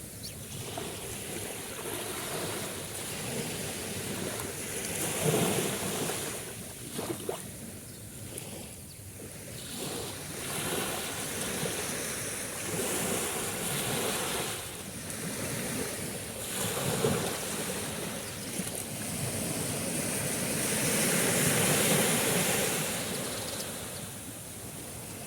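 Sea waves breaking and washing on the shore, surging and ebbing in loudness several times.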